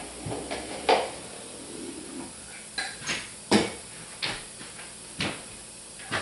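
A caulk gun being handled during caulking: about seven sharp clicks and knocks at uneven intervals, the loudest about three and a half seconds in.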